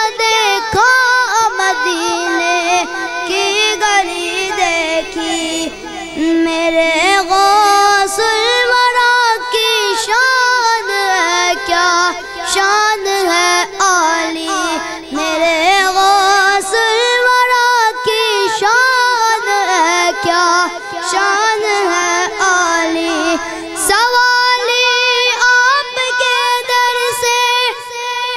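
A boy singing an Urdu devotional kalam (a manqabat in praise of the Ghaus of Baghdad) solo, in long drawn-out, wavering notes with a new phrase starting near the end.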